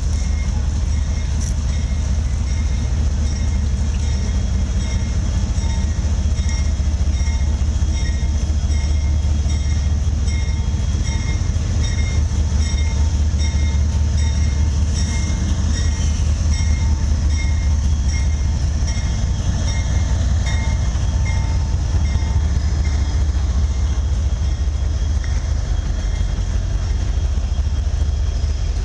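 CSX diesel freight locomotives approaching and rolling past: a steady low engine rumble with the train's wheels on the rails.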